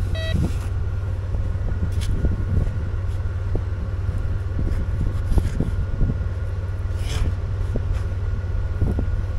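A metal detector beeps briefly at the very start, its coil held over a hole dug in beach sand. Then hands dig and scrape in the sand, with scattered light clicks, over a steady low rumble.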